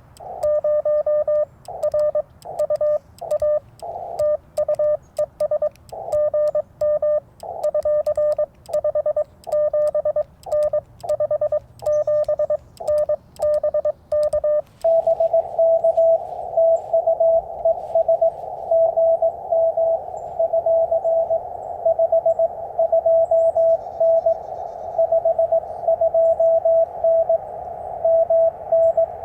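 Morse code from a Yaesu FT-891 transceiver. For about the first half, keyed dots and dashes near 600 Hz, typical of the operator's own sending heard as sidetone; then a different, slightly higher-pitched and faster Morse signal, another station's reply, comes through the receiver over a steady hiss.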